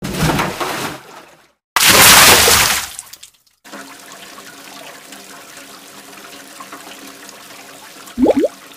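A person plunging feet-first into a deep river pool after a cliff jump: a splash of water, then a louder, longer splash about two seconds in, fading to a quieter steady wash.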